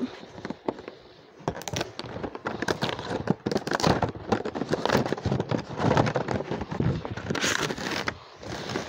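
Crackling and tearing of toy-car packaging, cardboard and plastic blister packs being ripped open, with many sharp clicks and crinkles.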